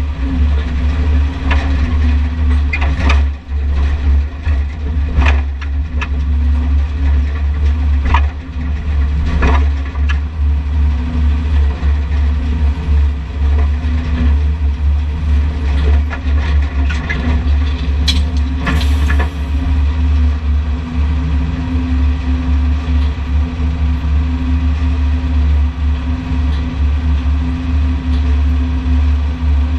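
Heavy machinery engine running steadily with a low rumble, with several short knocks or clanks along the way, the most marked near the middle.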